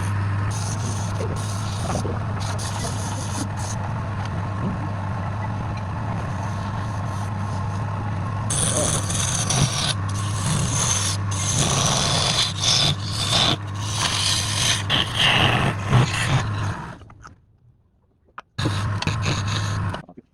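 Wood lathe running with a steady hum while something scrapes against the spinning wood. The scraping grows rougher and louder about halfway through, stops suddenly near the end, then comes back for a short burst.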